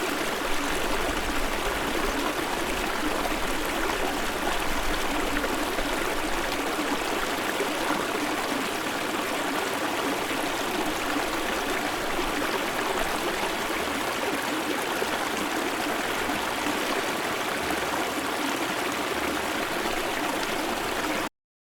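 Shallow river stream flowing steadily about half a metre away, a low-running trickle in a nearly dry riverbed. It cuts off abruptly near the end.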